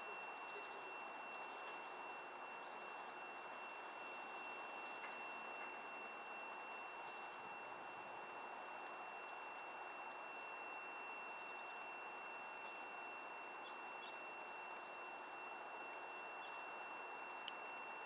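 Faint outdoor ambience: a steady background haze with small birds chirping now and then, in short high notes, over a thin, steady high whine.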